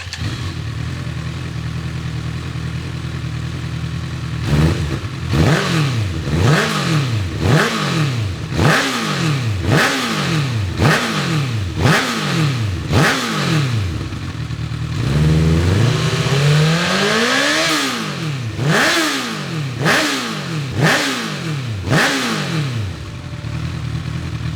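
Honda CB1000R inline-four engine through an Akrapovic full exhaust with its baffle plug fitted, idling and then revved in a long string of quick throttle blips, each rise falling straight back. About halfway through the revs are held higher for a longer pull before more short blips, and it settles back to idle near the end.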